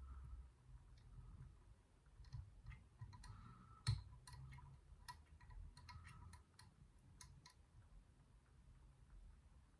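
Faint metallic clicks and light scraping of a pick working the levers inside a small four-lever drawer lock, with one sharper click about four seconds in.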